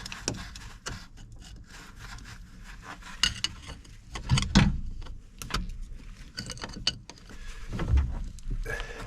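Irregular handling noise from working on a mini excavator's hydraulic hoses and fittings: scattered clicks, light knocks and rubbing, with heavier thumps about four and a half and eight seconds in.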